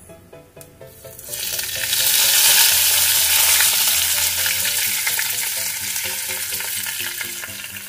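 Fresh curry leaves hitting hot ghee with cumin seeds in a kadhai: a sudden loud sizzle that starts about a second and a half in and slowly dies down, the tempering stage of the dish.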